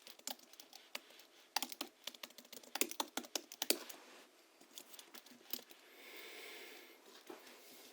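Hansung GHL-5X keyboard typing: quick runs of clacky keystrokes, its springs lubed with Krytox 103/107 and fitted with 50 g rubber domes. The keystrokes come thickest and loudest in the first half and then thin out. Around six seconds in, a soft rushing sound lasts about a second.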